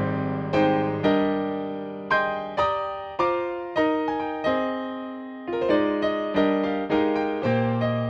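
Yamaha P-125 digital piano played slowly, single notes and chords struck about every half second and left to ring and fade, over a held bass note.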